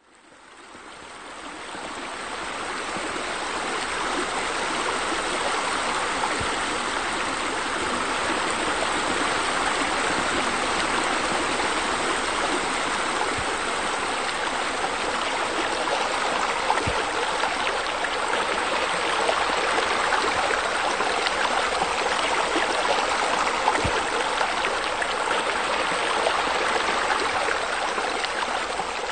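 Steady rush of running water, fading in over the first couple of seconds.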